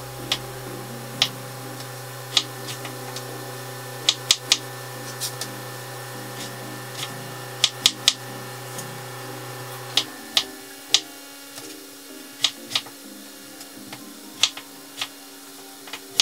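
Chef's knife chopping raw potatoes into small dice on a plastic cutting board: sharp, irregular knocks of the blade striking the board, sometimes two or three in quick succession.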